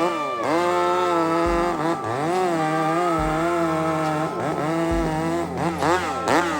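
Two-stroke chainsaw running at high revs, its pitch dropping and recovering several times as the chain is loaded in the cut and freed again.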